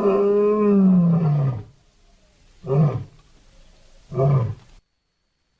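Big-cat roar sound effect made for the extinct Panthera shawi: one long roar whose pitch rises and then falls, followed by two short roars about a second and a half apart.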